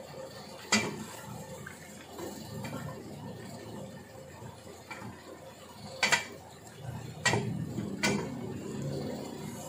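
Wooden spoon stirring and scraping onion-and-spice masala frying in oil in an aluminium pressure cooker. Four sharp knocks of the spoon against the pot: one about a second in and three close together near the end.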